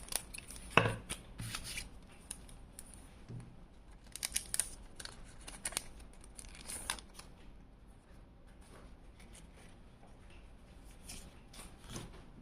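Pokémon trading card packs and cards being handled: irregular crinkles, snips, taps and slides of foil wrappers and cards, loudest about a second in and sparser in the second half.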